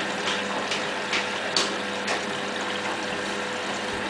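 Indesit WIE127 washing machine running with water rushing inside it over a steady low hum, with light ticks about twice a second.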